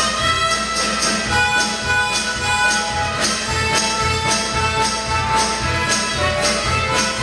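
A harmonica ensemble plays a march, with sustained melody and chords over a steady beat of about two strokes a second.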